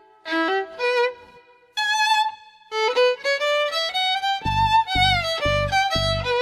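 Violin playing short melodic phrases with brief pauses between them. About four seconds in, a low beat joins underneath, about two pulses a second, and the violin melody runs on over it.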